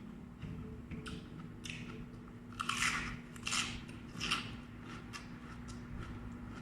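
A person chewing raw vegetables, a run of crisp crunches, loudest in the middle, over a faint steady hum.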